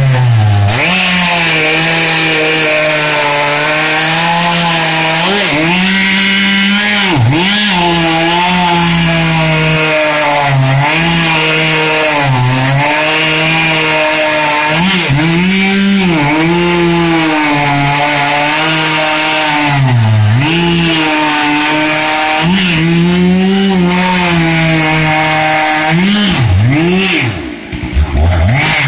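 Stihl MS 661 two-stroke chainsaw running at high revs while cutting into a cork oak stump. Its pitch dips and recovers every few seconds as it works in the cut. Near the end it drops briefly toward idle, then revs back up.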